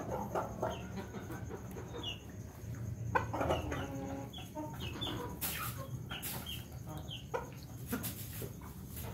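Ayam Ketawa roosters clucking with short high calls while eating, with sharp pecks of beaks against a metal feed bowl.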